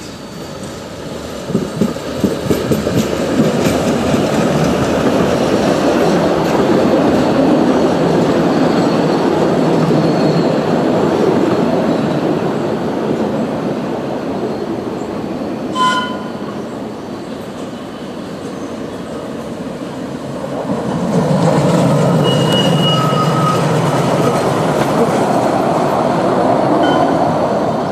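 Narrow-gauge park-railway train behind the EA 02 battery-electric locomotive rolling past, its wheels clicking over rail joints, with two long swells of running noise. A short pitched toot comes a little past halfway, and thin wheel squeals sound in the second swell.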